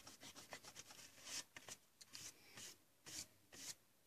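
Faint rubbing on drawing paper from erasing and brushing away the eraser crumbs. Quick back-and-forth strokes, about five a second, in the first second, then a few separate swipes.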